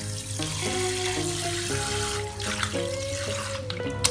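Tap water running hard into an aluminium pot of raw chicken innards, with background music of plucked notes throughout. The water stops a little past three seconds in, and a single sharp knock follows near the end.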